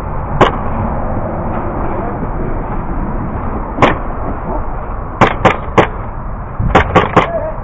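Airsoft gunfire: eight sharp, loud snaps, a single shot near the start, another a few seconds later, then two quick volleys of three.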